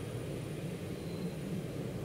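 Steady rumble of an MBTA Orange Line subway train running along the track, with a faint high whine above it.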